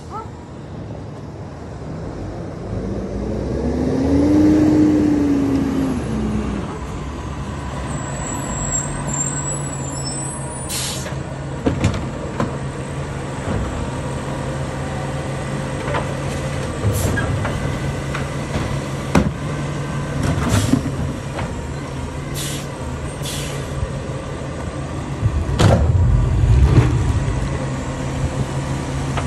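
Automated side-loading garbage truck pulling up with a brief squeal, then idling steadily while its mechanical arm grabs a wheeled cart, lifts and empties it into the hopper and sets it back down. Several sharp knocks and clanks come from the cart and arm, the loudest near the end.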